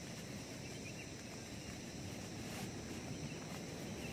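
Outdoor ambience: a steady high insect chorus with short, faint chirping calls every second or so, over a low rumbling noise.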